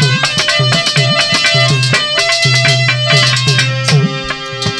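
Harmonium playing a melodic instrumental interlude of a Hindi bhajan over a steady rhythm of hand-drum strokes with bending low tones. The drumming thins out about four seconds in.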